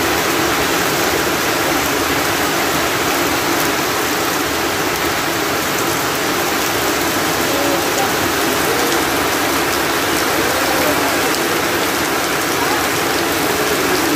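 Heavy monsoon downpour: a steady, dense rush of rain.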